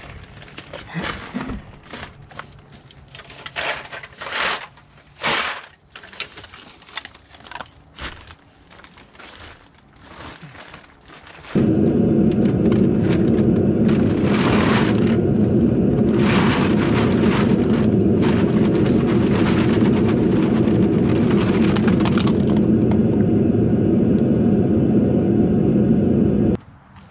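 Crushed aluminium cans clinking and a plastic bag rustling as bags of cans are handled, then the cans clattering out of the bag into a plastic bucket. From about halfway in, a loud, steady low rumble covers the clatter and cuts off abruptly near the end.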